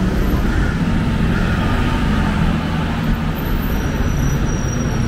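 Road traffic with a city bus driving past close by, its engine running steadily.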